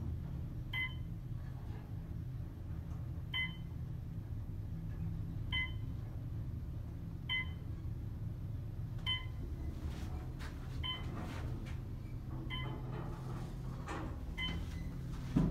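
Westinghouse traction elevator car travelling upward with a steady low hum. A short electronic beep sounds as the car passes each floor, about every two seconds, eight times.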